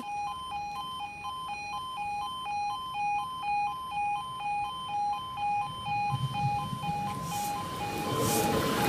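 Level crossing warning alarm sounding its two-tone yodel, a lower and a higher tone alternating about twice a second. From about six seconds in, the rumble of an approaching Class 156 diesel multiple unit grows louder beneath it.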